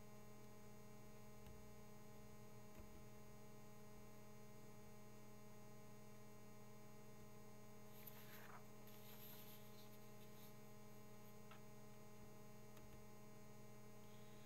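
Near silence: room tone with a steady low electrical hum in the recording, and a brief faint noise about eight seconds in.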